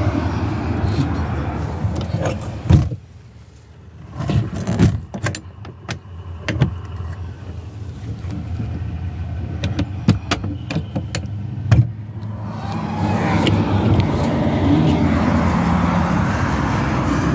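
Steady hum of vehicles in the surroundings. About three seconds in there is a sharp knock and the sound drops away for about a second. Scattered clicks and knocks follow, and then the steady vehicle hum returns with a low, even drone.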